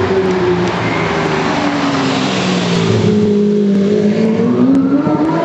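High-performance car engine running hard. Its pitch drops early, holds low for a while, then climbs steadily again near the end as it revs up.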